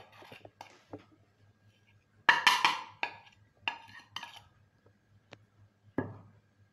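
Spoon scraping and tapping spices off a small china plate onto chicken pieces in a steel bowl, then the plate clinking as it is put down. A quick clatter of knocks about two seconds in is the loudest part, followed by a few single knocks.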